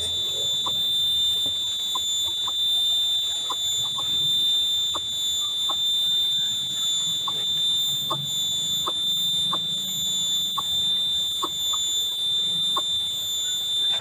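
A steady high-pitched drone with a fainter tone an octave above, the loudest sound throughout. Short soft clicks come about once a second. It cuts off suddenly at the very end.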